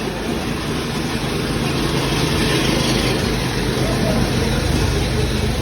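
Busy street-market ambience: vehicle engines running in heavy traffic, mixed with the chatter of many people.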